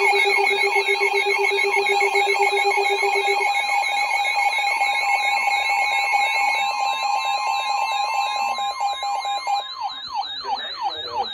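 Several weather alert radios sounding their alarms at once: steady beeping tones layered with fast warbling tones and rising-and-falling siren sweeps. Some of the steady tones cut out one by one, and near the end the siren sweeps slow down.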